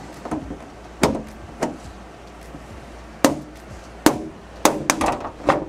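Plastic back cover of a Samsung UN50NU7000 TV being unlatched. About six sharp clicks and snaps come at irregular intervals, most of them in the second half, as the cover's clips release from the metal wire hooks.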